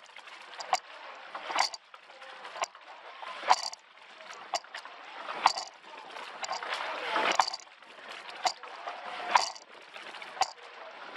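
Coxless four rowing shell under way: sharp knocks from the oars and oarlocks about once a second in a steady stroke rhythm, with the rush and splash of water along the hull swelling between them.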